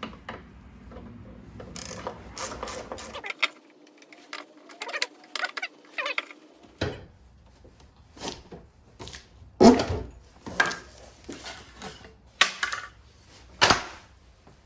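Hand ratchet clicking in short runs, with scattered metal clicks and knocks (the loudest a little past the middle), as bolts are tightened on a spare tire carrier hinge.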